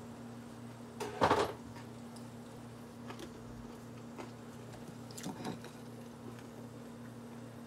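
A steady low electrical hum in a quiet kitchen, broken by a short clatter about a second in and a softer one about five seconds in, the second as the dinner plate is picked up from the counter.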